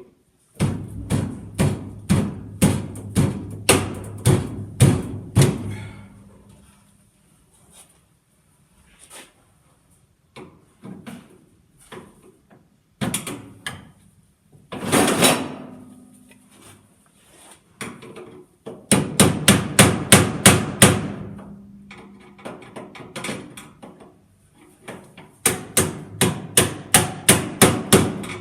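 Hammer blows in quick runs of about three to five strikes a second, with pauses and a few scattered single knocks between. A single longer, harsher noise lasting about a second comes about halfway through.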